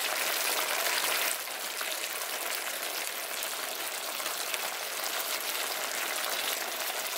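Chicken and broccoli sizzling in a frying pan, a steady hiss that drops a little about a second and a half in.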